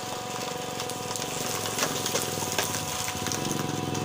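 Hydraulic bottle baling press's power pack running with a steady hum, its motor-and-pump note growing stronger about three seconds in, with scattered sharp clicks and crackles over it.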